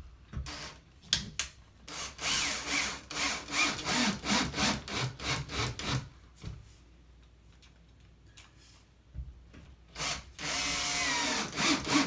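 Cordless drill driving screws through a drywall patch into wood behind it. It runs in short repeated pulses for a few seconds, pauses, then makes a longer steadier run near the end.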